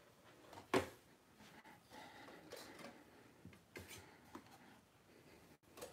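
Faint handling of a movie disc and its case on a hard tabletop, with one sharp click about three-quarters of a second in and a few light ticks and rubs after.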